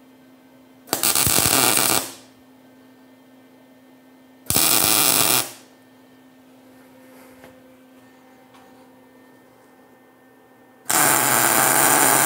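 MIG welder tack-welding a steel bracket to a square steel tube: three short welding bursts, about a second, a second, and two seconds long, with a faint steady hum between them.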